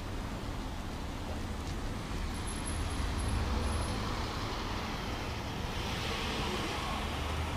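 Tractor-trailer's diesel engine and tyres rumbling steadily as the truck drives slowly past, with a rush of road noise as it comes alongside near the end.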